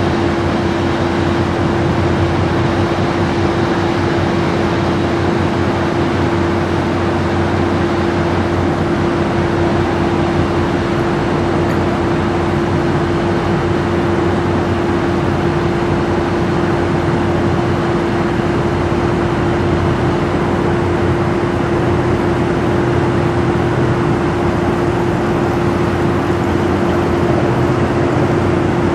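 Steady drone of the passing laker Rt. Hon. Paul J. Martin, a constant machinery hum over an even rushing noise, unchanging throughout.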